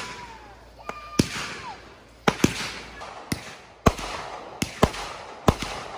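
Aerial fireworks bursting: about ten sharp bangs at uneven intervals, some in quick pairs, each fading out quickly. A faint falling whistle sounds twice in the first two seconds.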